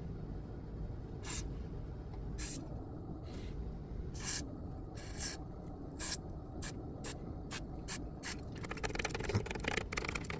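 Aerosol can of DeoxIT D5 contact cleaner sprayed in about a dozen short hissing spurts into the amplifier's switches, followed near the end by a denser run of fast scratchy crackling.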